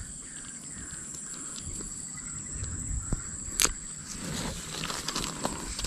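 Outdoor ambience with a steady high-pitched whine, faint short bird-like chirps, and a sharp click about three and a half seconds in, followed by some rustling.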